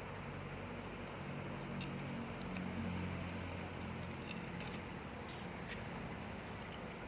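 A few faint clicks and taps of small hand tools being handled at a workbench, over a steady hiss, with a low hum for a few seconds early on.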